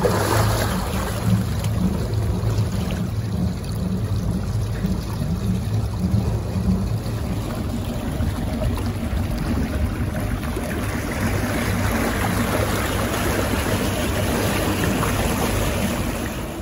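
Motor boat's inboard engine running at low speed, a low pulsing hum, with cooling water splashing from the exhaust outlets in the hull side. The rush of churned water grows louder in the second half as the boat moves off.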